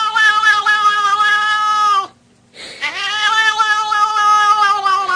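A cat yowling: one long, drawn-out howl that drops in pitch and breaks off about two seconds in, then after a short pause a second long howl that slides up and holds.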